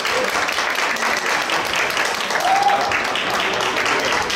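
Audience applauding, with a short cheer rising and falling about two and a half seconds in.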